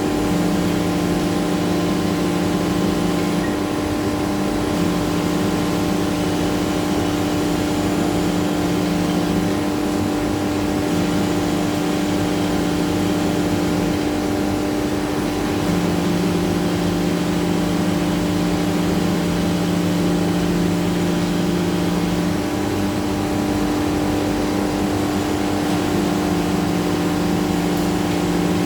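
CNC router with an automatic tool changer running a cutting job: a steady spindle whine, with a lower hum that comes and goes every few seconds as the machine works.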